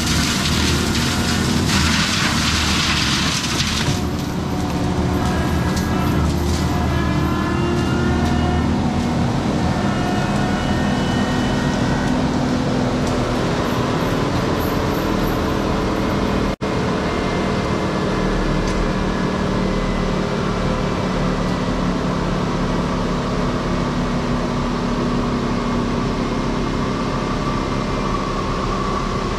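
A Kubota SVL95-2S compact track loader's four-cylinder turbo diesel runs hard and steady, driving a GyroTrac 500HF forestry mulching head. For the first four seconds a dense, harsh grinding noise lies over the drone as the head chews into brush. The sound cuts out for an instant about halfway through.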